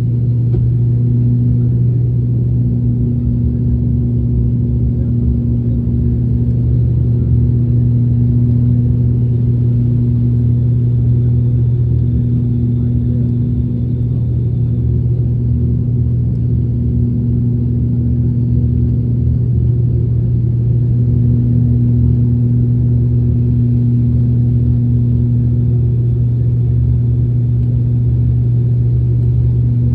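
Cabin drone of an ATR turboprop's engines and propellers in descent: a loud, steady low hum with a strong droning tone that does not change.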